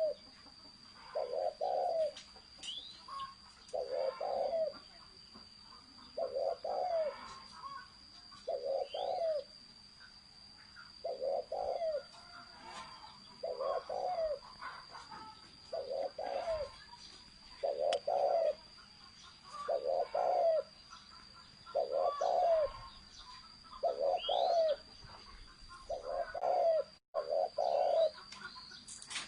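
Spotted dove (cu gáy) cooing in the deep 'thổ sấm' call style, a short phrase repeated about every two seconds. Faint chirps of other birds and a thin steady high whine sit behind it.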